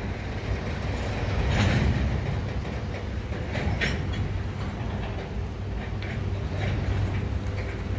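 Freight train of double-stack container well cars rolling slowly, a steady low rumble with a few sharp metallic clanks, the loudest about two and four seconds in.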